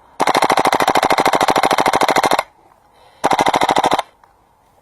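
Airsoft rifle firing on full auto in two rapid bursts: a long burst of about two seconds, then after a short pause a second burst of under a second.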